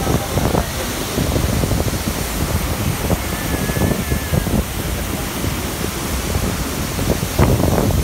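Athirappilly Falls, a wide waterfall, making a steady heavy rush of falling water with a deep low rumble. Wind buffets the microphone in irregular gusts, hardest about seven and a half seconds in.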